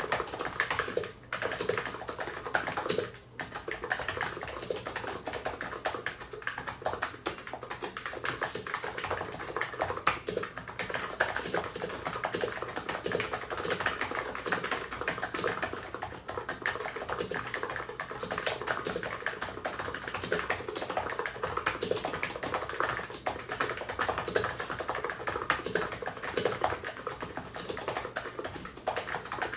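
Continuous fast typing on an ABKO HACKER K980 keyboard with 45 g electro-capacitive (contactless) switches: a dense run of key strokes, with two brief pauses about one and three seconds in.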